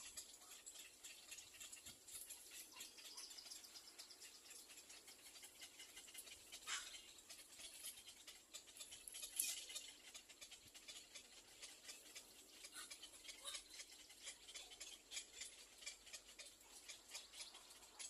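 Little black cormorant chicks in the nest giving faint, scattered high-pitched calls over a fine rapid ticking, with one louder call that slides downward about seven seconds in.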